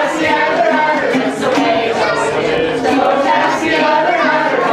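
A group of voices singing together, choir-style, steady and loud.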